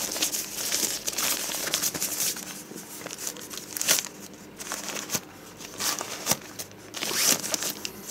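A thin white protective sleeve being pulled off a tablet, crinkling and rustling in irregular spurts, with louder bursts about four seconds in and again near the end.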